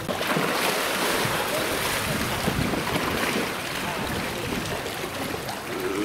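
Steady rushing noise of wind and water that sets in abruptly and eases a little toward the end.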